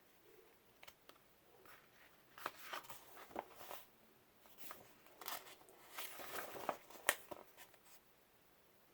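Paper rustling and soft clicks as a picture book is handled and its pages are turned, in a series of short irregular bursts between about two and seven and a half seconds in.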